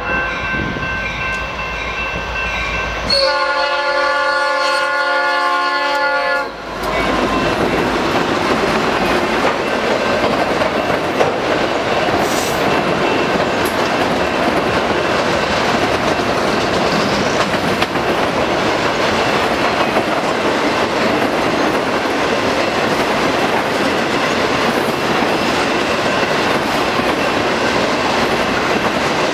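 Norfolk Southern freight train passing close by: the lead diesel locomotive's horn ends one blast at the start and sounds another of about three seconds a few seconds in. After that comes the steady rumble and clickety-clack of freight cars rolling past.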